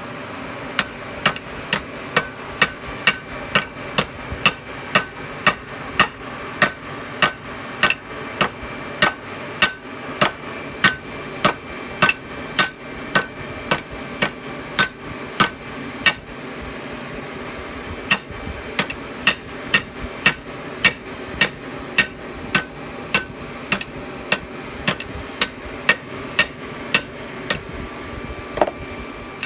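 Blacksmith's hammer striking hot steel on an anvil in a steady rhythm, about two ringing blows a second, with a pause of about two seconds midway, over a steady background hum.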